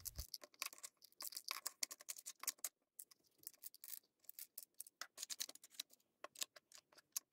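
Dry dog kibble poured from a plastic measuring cup into the plastic compartments of a Nina Ottosson Dog Brick puzzle toy, the pieces landing in many quick, irregular clicks and rattles.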